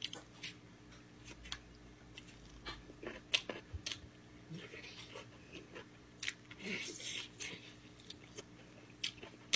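A person chewing and eating gamjatang (Korean pork bone soup): scattered sharp clicks and soft smacks, with short hissing sounds about five and seven seconds in.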